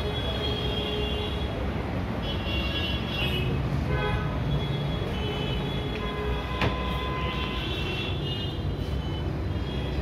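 Tyre-changing machine at work, a steady mechanical rumble with repeated high squeals of the rubber tyre against the steel rim, and a sharp click a little past the middle.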